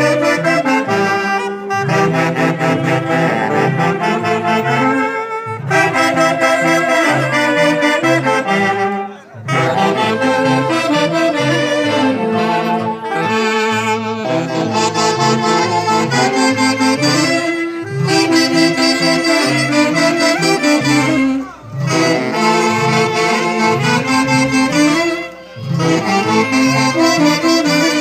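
Live band music, with saxophones carrying a busy melody over a steady bass line. The playing breaks off briefly between phrases, about a third of the way in and twice near the end.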